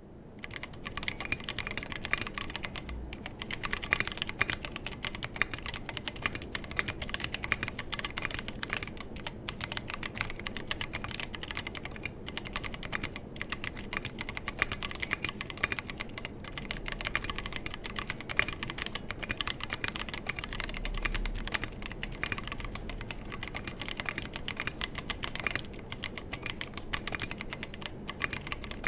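Fast, continuous typing on a 60% mechanical keyboard with stock Halo True tactile switches, a brass plate, no case foam and SA-profile PBT keycaps, sitting on a deskmat. The keystrokes come in a dense clatter with a few brief pauses.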